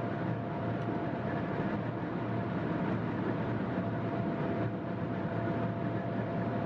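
Steady road and engine noise inside a moving car's cabin at highway speed.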